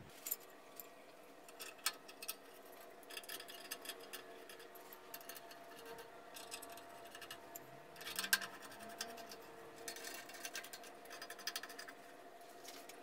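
Scattered small clicks, scrapes and taps of metal parts being handled as a bandsaw's fence guide rail is fitted along the table edge and fastened with wing nuts, with a sharper knock about eight seconds in.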